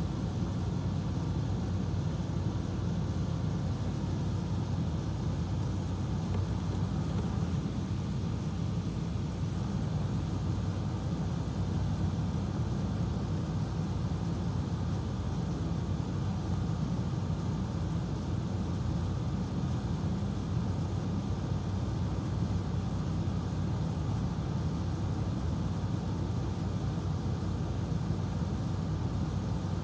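Steady low mechanical hum with no distinct events and no change in level throughout.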